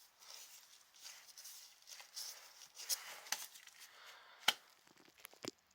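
Light clicks, knocks and rustling as a new crankshaft oil seal is pushed by hand into its housing in a two-stroke engine case, with one sharper knock about four and a half seconds in.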